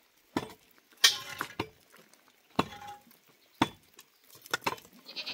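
Sharp knocks and clinks about once a second, with a louder clatter about a second in.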